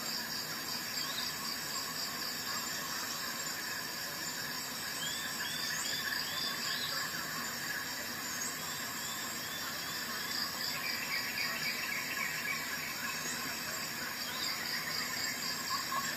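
Steady high-pitched chirring with short repeated chirps, like an insect chorus; a lower trill joins about ten seconds in.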